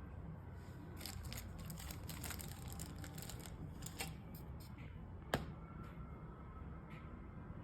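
Small clicks and taps of hands working on a phone and small repair tools, a quick run of light clicks, then one sharper click about five seconds in, over a steady low hum.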